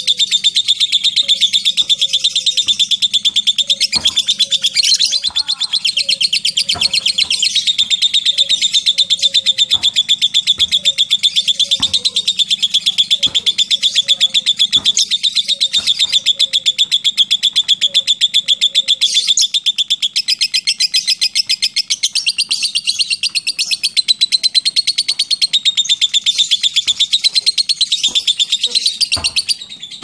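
Lovebird 'ngekek' song: a very rapid, high-pitched chattering trill held almost without a break, cutting off about a second before the end.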